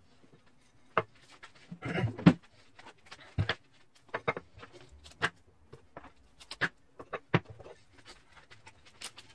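Irregular clicks and knocks of hard objects being handled, with a short louder clatter about two seconds in.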